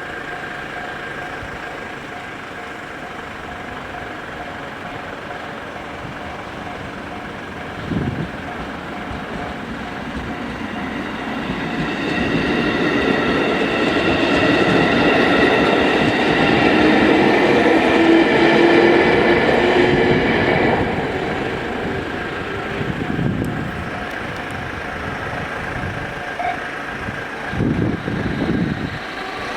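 A JR standard-type electronic level-crossing alarm rings steadily. A train passes through the crossing, building from about 11 s in to its loudest between roughly 14 and 20 s, with wheel and rail noise and a rising motor tone, then fading.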